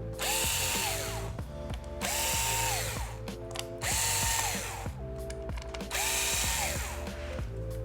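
Small electric screwdriver backing out the battery screws: four short runs of about a second each, roughly two seconds apart, the motor whine rising as it spins up and falling as it stops. Background music plays underneath.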